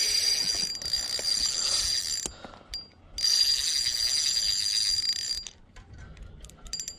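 Spinning reel buzzing as it is cranked to bring in a hooked fish: a high-pitched mechanical whir in two stretches of about two seconds each, with a short pause between.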